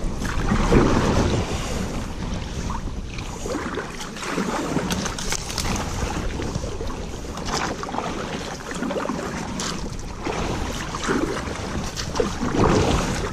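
Canoe being paddled: irregular paddle splashes and light knocks against the hull, over a steady rumble of wind on the microphone.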